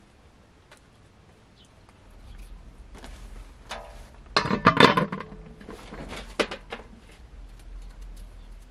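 A knife scraping the skin off a potato over a large metal basin, in short strokes. About four and a half seconds in comes a louder clatter of the metal basin, with a brief ring.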